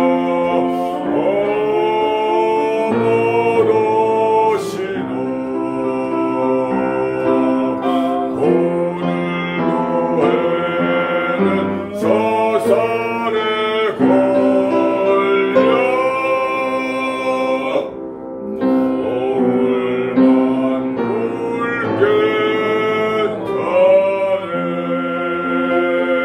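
A man singing a Korean art song in classical bel canto style, holding long notes with vibrato over piano accompaniment, with a brief breath pause about eighteen seconds in.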